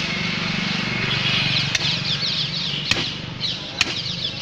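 A butcher's cleaver chopping beef on a wooden log block: three sharp chops, roughly a second apart, in the second half. Under them runs a steady low engine hum, with quick high chirps from about a second in.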